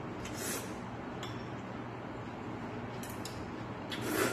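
Close-up eating sounds of mulhoe noodles in cold raw-fish soup being slurped and chewed, with a few light clinks of chopsticks against a porcelain bowl. The loudest slurp comes near the end.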